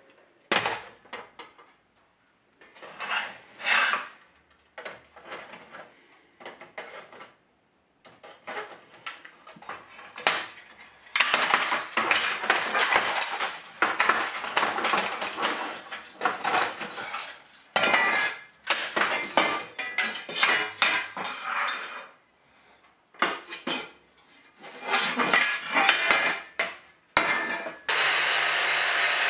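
Steel armour plates clinking, clattering and scraping against each other and the metal bench as they are handled. Near the end a Makita angle grinder starts and runs steadily, its disc working a blackened steel plate.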